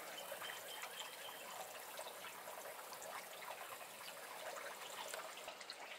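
Butter sauce being poured onto sweet potato mash: a faint, steady crackle of small ticks and trickling.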